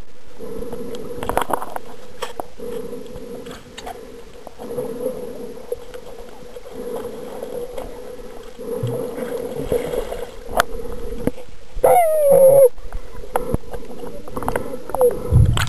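Muffled sloshing and gurgling of water with the camera held under shallow seawater, over a steady hum. A short falling pitched sound comes through about twelve seconds in.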